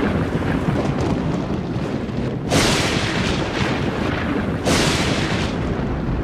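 Continuous dense rumbling, booming noise that swells sharply about two and a half seconds in and again just before five seconds.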